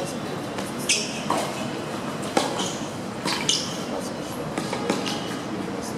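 Tennis rally on a hard court: the ball struck by racquets and bouncing, a sharp hit every second or so.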